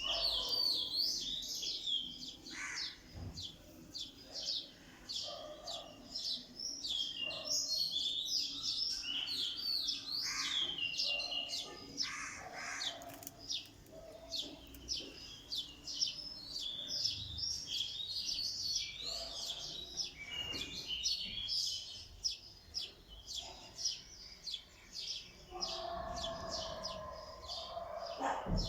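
Several small birds chirping, a dense, continuous chatter of short, quick, high chirps overlapping one another.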